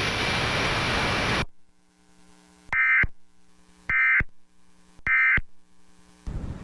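Emergency Alert System end-of-message (EOM) data bursts: three short, shrill digital chirps about a second apart, marking the end of the alert. Radio static hiss comes before them for about a second and a half and returns near the end.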